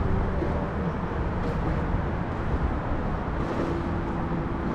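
Boat motor running steadily: a low, even rumble with a faint steady hum over it.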